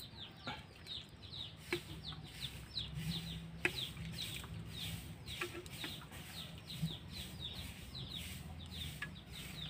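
Chicks or chickens peeping throughout, many short falling peeps about two or three a second. A few light clinks of a metal ladle against a metal wok being stirred cut in, one of them louder a little past three and a half seconds in.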